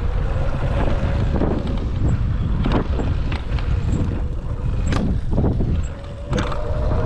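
Electric dirt bike riding along, its motor giving a steady whine over heavy wind rumble on the microphone, with a few sharp knocks scattered through.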